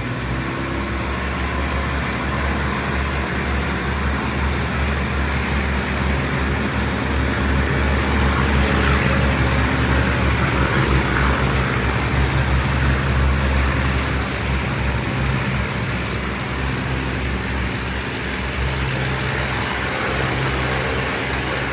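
Hitachi RHN diesel railcar running: a steady low diesel engine drone under a wash of running noise, which grows louder in the middle and then eases.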